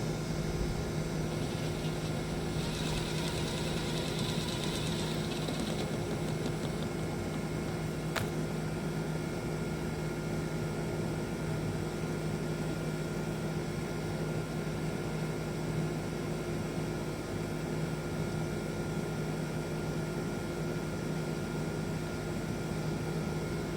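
A steady mechanical hum with several fixed tones, unchanging throughout, with a brief hiss in the first few seconds and a single sharp click about eight seconds in.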